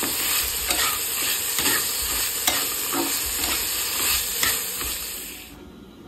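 Chickpeas and sliced onion sizzling in a hot pan while a metal spatula stirs them, with repeated scrapes and clinks against the pan. The sizzle cuts off suddenly near the end.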